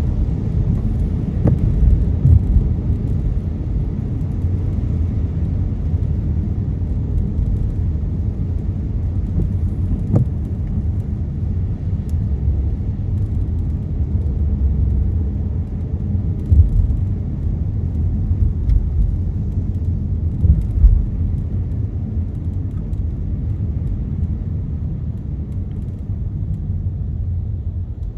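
Car driving: a steady low rumble of road and engine noise, with a few faint clicks.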